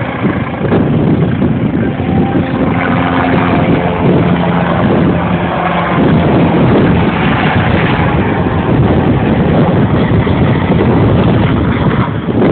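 Helicopter flying low overhead, its engine and rotor noise mixed with heavy wind buffeting the microphone. A steady engine tone stands out for a few seconds near the start.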